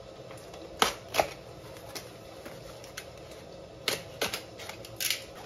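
Books and packaging being handled: a handful of separate sharp taps and clicks, two about a second in and a few more close together near the end.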